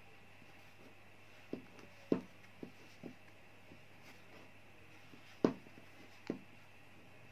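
Crochet hook and yarn working through a punched shoe sole: a few soft, separate clicks and taps, the loudest about two seconds in and again about five and a half seconds in, over a steady faint hum.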